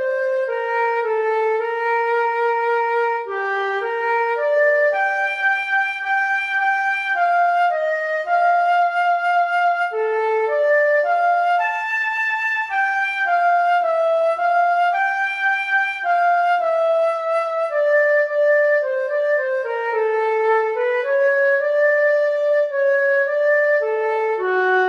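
Transverse flute playing a slow waltz melody in three-four time, one note at a time, smooth and legato with held notes.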